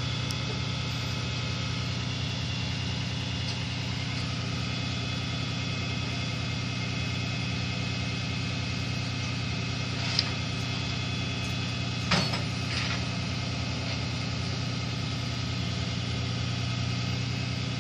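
Flatbed tow truck's engine idling steadily, with two short knocks about ten and twelve seconds in.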